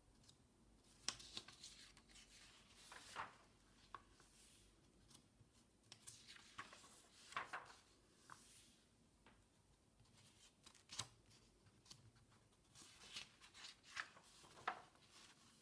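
Pages of a paper instruction manual being turned and handled: faint, irregular short rustles and soft clicks of paper.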